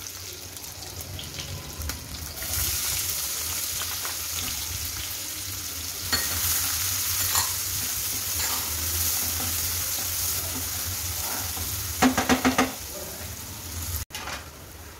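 Chopped onions sizzling in hot oil in a kadhai, growing louder a couple of seconds in as they are stirred with a flat spatula that scrapes and knocks against the pan. Near the end the spatula knocks the pan four or five times in quick succession.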